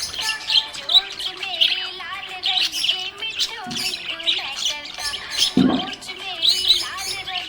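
Budgerigar chirping and warbling in quick, dense chirps over an instrumental music melody, with a short low thump about five and a half seconds in.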